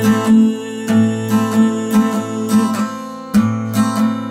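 Acoustic guitar strummed in chords, a stroke every fraction of a second, with a brief dip about three seconds in before the strumming picks up again.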